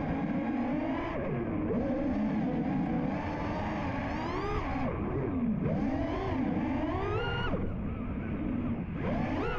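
FPV freestyle quadcopter's brushless motors (Ethix Stout 2306, 1750 kV) whining, the pitch swooping up and down again and again as the throttle is punched and eased.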